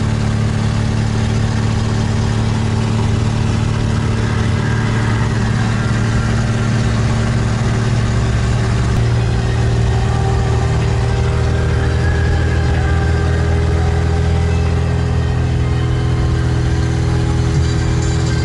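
Car cabin at cruising speed: engine and road noise droning steadily.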